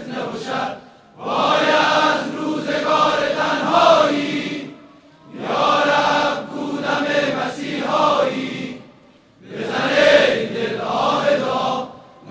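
A large crowd of men chanting a Shia noha (mourning lament) together in unison. The chant comes in three phrases of about four seconds each, with a short breath-pause between them.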